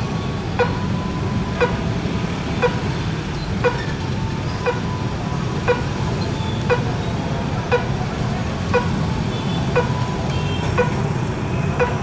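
Railway level-crossing warning bell dinging at an even pace of about once a second, over the steady rumble of motorcycles and traffic crossing the tracks.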